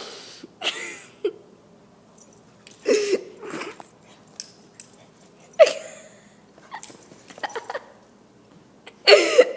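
An excited dog giving a string of short, pitched whining calls, about half a dozen spread out with pauses between them.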